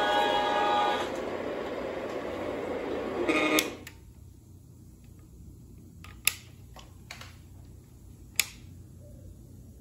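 O gauge model diesel locomotive's electronic horn sounding for about a second, then the running noise of the train on three-rail track, which cuts off suddenly about four seconds in. After that, low room noise with a few faint clicks.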